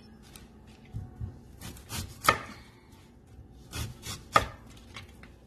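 Kitchen knife cutting a white onion on a plastic cutting board: a scattering of short knocks as the blade meets the board, the two loudest about two seconds apart.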